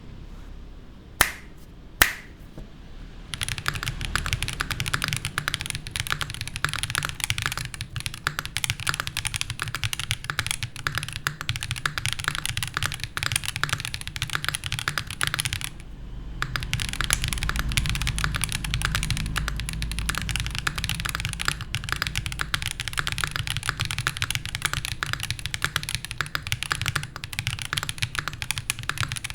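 Mechanical keyboard typing: a QK60 gasket-mount board with stock Viola Tricolor L switches on an aluminium plate and GMK Deku keycaps. Two single loud key strikes, then fast continuous typing from about three seconds in, with a brief pause about halfway.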